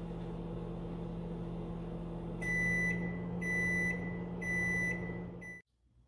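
Samsung over-the-range microwave oven running with a steady hum as its timer runs out. About two and a half seconds in it sounds its end-of-cycle signal: three beeps about a second apart and a short fourth one. The hum cuts off near the end.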